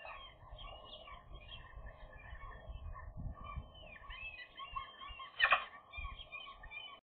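Small songbirds chirping and warbling in the background, with one short, harsh, noisy call standing out about five and a half seconds in.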